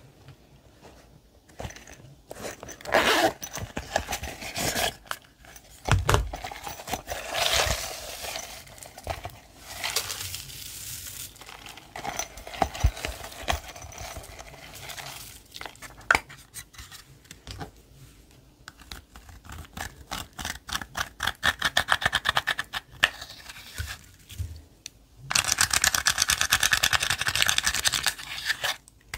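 Hands working and mixing slime: irregular sticky crackles, pops and scrapes. A dense run of rapid crackling clicks comes past the middle, and a rough scraping rush near the end.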